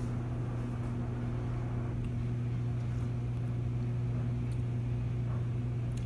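A steady low hum with fainter overtones above it, unchanging throughout.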